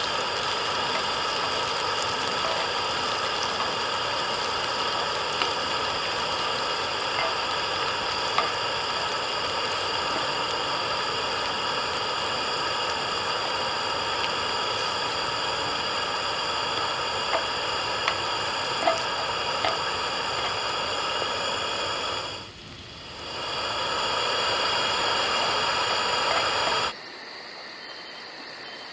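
Meat sizzling in a hot pan: a steady frying hiss with a few light clicks as tongs turn the pieces. Near the end the sizzle cuts off abruptly, leaving a fainter background hiss.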